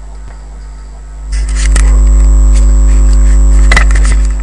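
Steady electrical hum on the recording line, joined about a second in by a loud, deep rumble with scattered clicks and crackles that eases off near the end.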